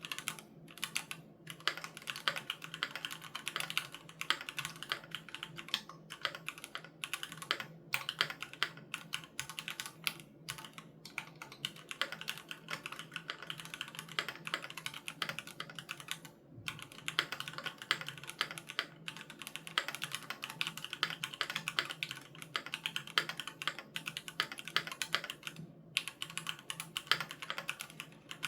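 Fast, continuous typing on a Keychron Q3 Knob mechanical keyboard with Gateron G Pro Red linear switches, a dense run of key clicks broken by a few brief pauses.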